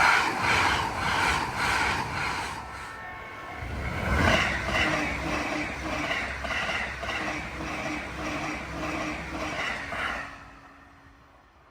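Japanese level crossing warning bell ringing about twice a second while a train rumbles past. The ringing drops away about ten seconds in.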